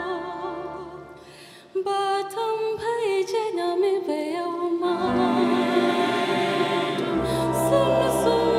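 A female soloist sings a gospel song in Twi with electronic keyboard accompaniment. One phrase dies away and a new one begins, and about five seconds in a fuller accompaniment with deep bass swells in beneath the voice.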